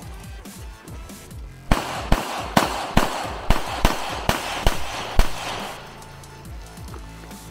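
Handgun shots fired in quick succession by a practical-shooting competitor. About nine shots, a little under half a second apart, start about two seconds in and stop a little after five seconds. Background music plays underneath.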